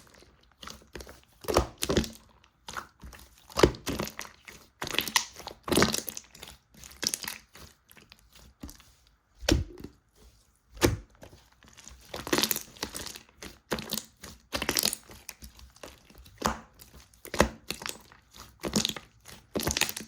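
Hands pressing, stretching and folding a thick milky slime, giving irregular short, sharp pops and squishes, some louder than others.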